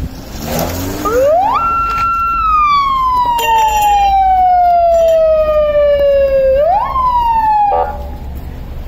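Police siren wailing. It climbs steeply to a high pitch about a second in, holds briefly, then slowly falls. Near the end it jumps up sharply once more, falls again and cuts off with a brief stutter.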